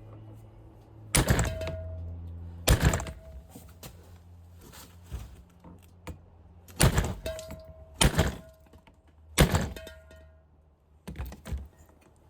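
About seven sharp metal-on-metal knocks at uneven intervals, each with a brief ring. The knocks come from working at a seized screw on the throttle body to get the idle air control valve off. A low steady hum fades out midway.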